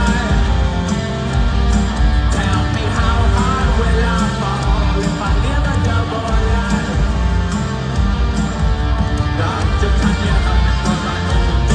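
Live rock band playing in a large arena: electric guitars, bass and drums, with the singer's voice over them in places.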